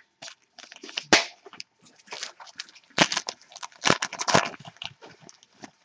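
Baseball cards and their pack wrappers being handled: an irregular run of crinkles and clicks, loudest about a second in and again from about three to four and a half seconds.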